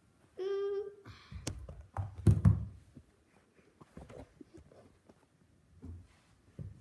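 Knocks and thumps of a phone being handled and propped up while it records, loudest about two seconds in, with a short vocal sound just before. Faint ticks follow as it settles.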